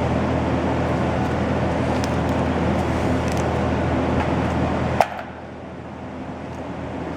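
A steady mechanical drone over a low hum. About five seconds in it cuts off abruptly with a sharp click, leaving a quieter hum.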